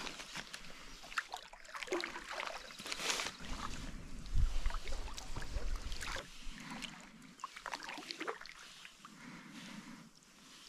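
A packraft being paddled on calm water: irregular small splashes and drips from the paddle strokes, with a brief low rumble about halfway through.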